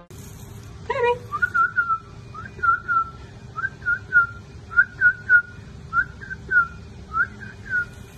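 Whistling: short rise-and-fall chirps at one high pitch, in quick groups of two or three, repeated about once a second, after a quick upward sweep about a second in. A faint steady hum lies underneath.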